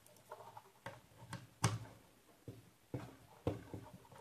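About half a dozen light, separate clicks and knocks as a two-pin plug is handled and pushed into a socket on a switchboard, the loudest about one and a half seconds in.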